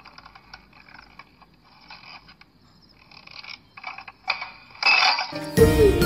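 Faint, irregular creaking and clicking of a street-lamp post being rocked. A louder rush of noise comes about five seconds in, and music comes back in at the very end.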